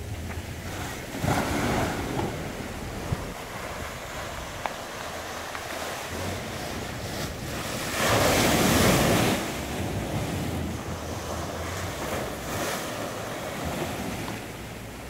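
Small sea waves breaking and washing up a sandy beach among rocks, swelling and ebbing, with wind rumbling on the microphone. The biggest wave surges in about eight seconds in, and a smaller one a second or so in.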